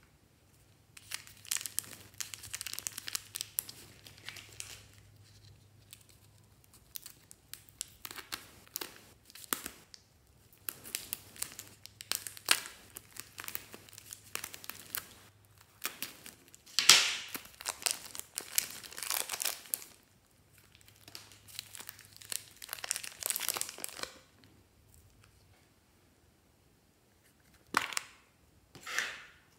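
Plastic packets of soft clay crinkling as they are handled and cut open with scissors, in several bursts with pauses between, loudest a little past the middle.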